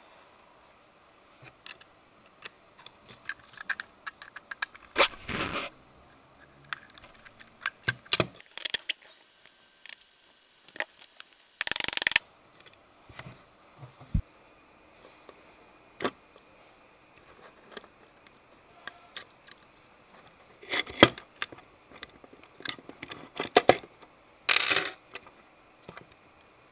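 Hands assembling a 3D-printed mini table saw: hard plastic parts, a steel shaft and small screws, washers and nuts clicking and clinking against each other and the tabletop. The handling goes on irregularly, with a few louder half-second rattles.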